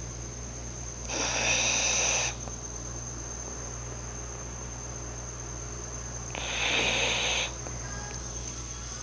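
A sleeping person snoring: two snores about five seconds apart, each a little over a second long.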